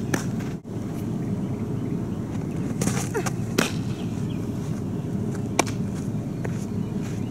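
Fastpitch softball pitches smacking into a catcher's mitt: a few short, sharp smacks, the loudest about three and a half and five and a half seconds in, over a steady low outdoor rumble.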